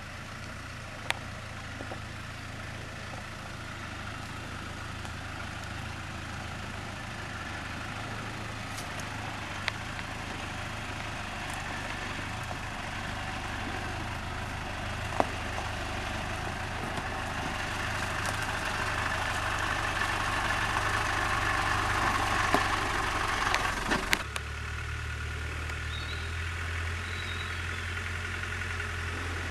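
Land Rover Discovery's 200Tdi four-cylinder turbodiesel engine running at low revs as the vehicle is driven slowly over rough ground, growing louder as it approaches, with a few sharp knocks. Near the end the sound changes abruptly to a steadier low engine hum.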